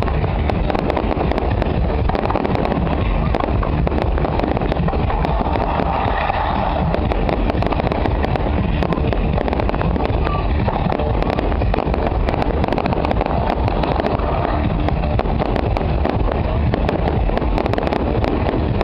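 Fireworks display going off in a continuous barrage, a dense run of bangs and crackles with no break.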